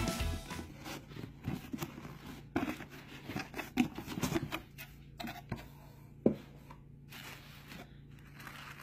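A cardboard box being opened by hand: the lid scraping and knocking as it is lifted off, with scattered light rustles and clicks and a few sharper knocks.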